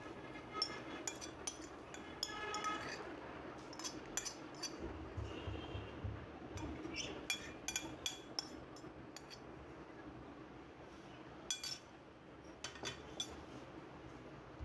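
Metal spoon scraping jelly cubes off a china plate and tapping against the plate and a glass bowl: irregular light clinks, sometimes in quick little runs.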